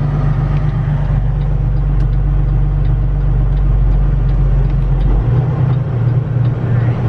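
Semi-truck tractor driving, heard inside the cab as a loud, steady low engine drone. About five seconds in, the deepest rumble drops away, leaving a pulsing hum.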